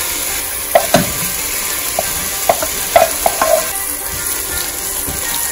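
Marinated jackfruit pieces dropping into a pot of hot masala and sizzling steadily, with a quick run of knocks in the first few seconds as the metal bowl and wooden spatula tap against the pot while the bowl is emptied.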